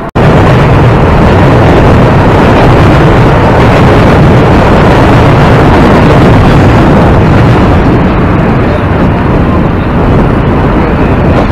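Loud, steady roar of a busy city crossing, crowd and traffic together, so loud that it overloads the small camera microphone. It starts abruptly at a cut.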